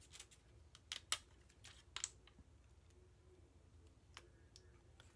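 Faint small clicks and taps from fingertips and fingernails working adhesive rhinestone gems and their clear plastic backing onto a paper scrapbook page. There are several in the first two seconds, the sharpest just after one second, then two faint ticks near the end.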